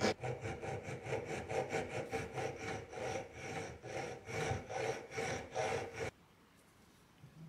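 A hand file scraping back and forth across a small rusty metal part clamped in a vise, filing its face flat, in steady rhythmic strokes. The strokes stop abruptly about six seconds in.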